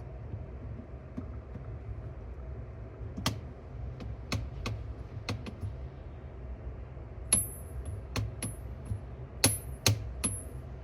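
Light metallic clicks and taps of small parts and tools being handled as the second capstan is fitted into a Pioneer T-838 cassette deck's tape transport, over a steady low hum. The clicks are scattered, and several in the second half carry a brief high metallic ring.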